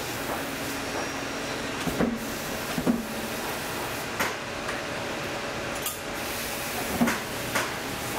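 Hand tools working on a worn leather work boot during teardown: half a dozen short, sharp knocks and clicks at irregular spacing, the loudest about three and seven seconds in, over a steady shop hum.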